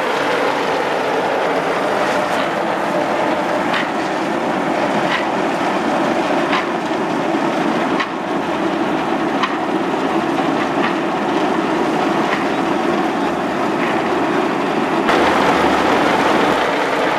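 Freshly picked coffee cherries pouring in a steady rattling rush from a sack down a chute into a truck bed heaped with cherries, with a faint tick about every second and a half.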